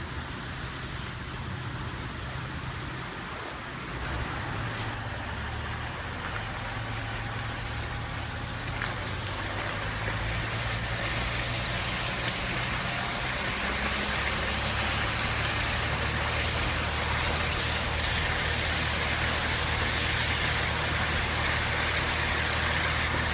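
A car engine running with a low, steady hum under a constant hiss of rain, which grows gradually louder.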